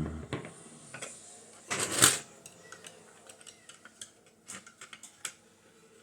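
Hard plastic parts of a Kenner AT-AT toy clicking and clattering as they are handled and fitted together, with one louder rattling scrape about two seconds in and scattered small clicks after it.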